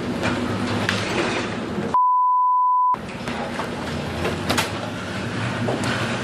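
A steady rushing noise with scattered knocks and rattles, as aboard a ship in a storm, interrupted about two seconds in by a one-second censor bleep, a steady high beep that blanks out all other sound.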